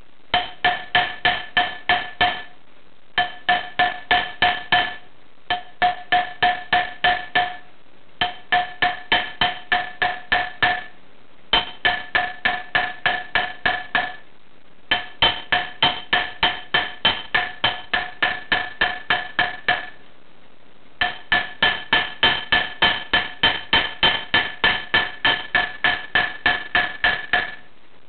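Quick runs of light hammer blows, about four to five a second, on tin worked over a steel rod while forging a tin finger ring. Each blow gives a short metallic ring. There are about seven runs of a few seconds each, with brief pauses between them.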